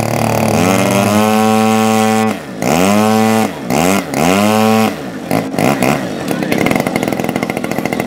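Engine of a large radio-controlled Yak-54 model aerobatic plane being run up on the ground. It revs up from idle about half a second in and holds high, then is throttled down and back up in several quick blips, and settles into a steady, noisier run for the last couple of seconds.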